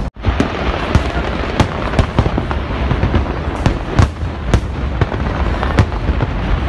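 Aerial fireworks display bursting overhead: a dense, irregular run of bangs and crackles over a continuous rumble.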